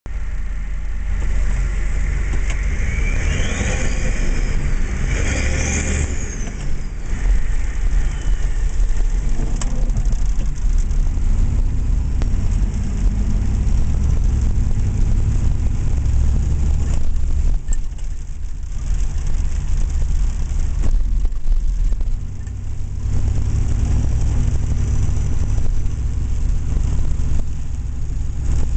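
7.3-litre turbo-diesel V8 running under way in a tunnel, a deep steady drone with the turbocharger whistle rising and falling in pitch a few seconds in, and a fainter whistle again near the end.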